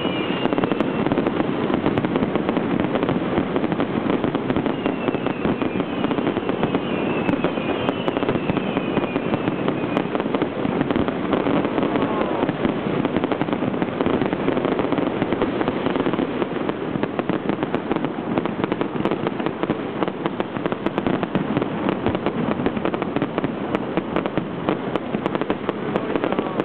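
A dense, unbroken barrage of fireworks at close range: aerial shells bursting and crackling without pause. A few short falling whistles come through in the first ten seconds or so.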